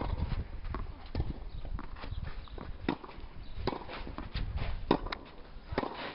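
Tennis ball hit by a racket and bouncing on a clay court: a string of sharp pops, one every second or so.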